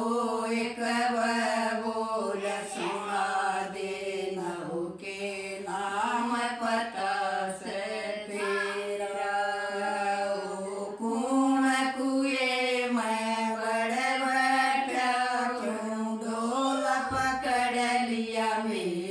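Women singing a jakdi, a Haryanvi folk song, together and unaccompanied, in long drawn-out notes that bend slowly in pitch.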